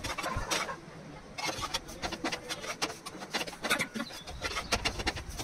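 Metal spatula scraping and tapping on a tawa as a paratha is flipped and pressed down: irregular scrapes and knocks, with a quieter moment about a second in.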